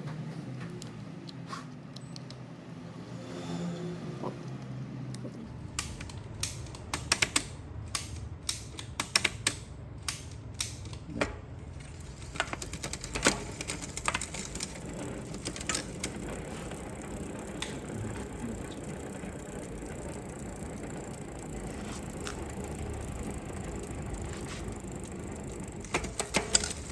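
Bicycle parts being worked on by hand during front derailleur cable fitting. Quiet handling at first, then a run of sharp irregular clicks and knocks, then a low steady mechanical noise with occasional clicks.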